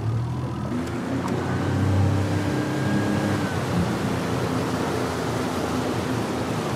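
Small Mercury outboard motor running under throttle, driving a jon boat up to speed, with water rushing past the hull.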